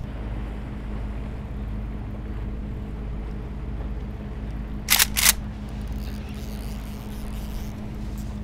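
Fishing boat's engine idling with a steady low hum. About five seconds in come two short, sharp clicking bursts, a third of a second apart.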